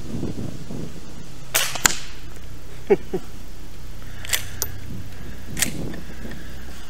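Sharp snaps and metallic clicks from an FN Browning Trombone .22 pump-action rifle being fired with .22 shorts and its pump slide worked: a pair about one and a half seconds in, two short falling scrapes near the middle, then single clicks. A steady low rumble runs underneath.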